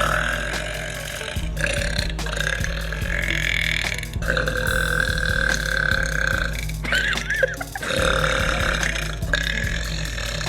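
A girl burping long, drawn-out burps, about five in a row, each lasting one to three seconds, over a steady deep background hum or music.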